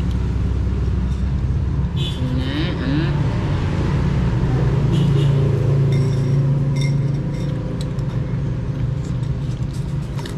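Steady low rumble, with light clicks of spoons against bowls.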